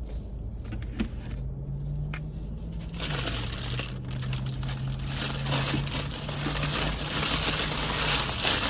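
Paper food packaging being handled and crinkled, with a few faint rustles at first and then continuous crinkling from about three seconds in, over a low steady hum.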